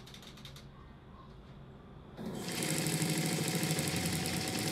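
A sewing machine starts up about two seconds in and runs at a fast, steady stitching pace, sewing through denim.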